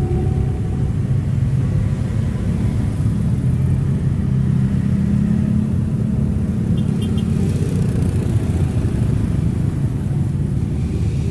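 Hino AK3HR bus running with a 'ngorok' (snoring) exhaust: a steady, deep, continuous rumble that swells a little in the middle.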